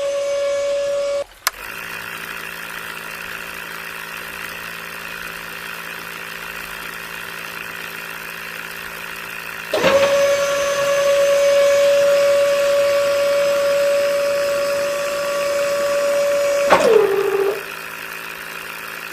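Small DC motors of a homemade mini tractor drilling rig running with a steady electric whine over a lower hum. A higher-pitched motor cuts in about ten seconds in and winds down in pitch about seventeen seconds in.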